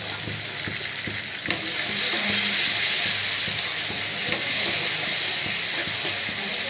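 Chopped small onions and tomatoes sizzling steadily in hot oil in a pan, with a spoon stirring them and clicking against the pan now and then.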